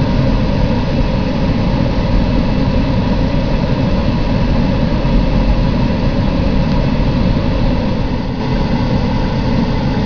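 Amtrak passenger train, a diesel locomotive and its coaches, passing at close range. It makes a steady heavy rumble, heard from inside a vehicle's cab.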